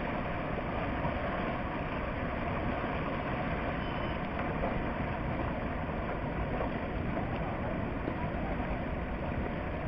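Steady rush of fast-flowing whitewater.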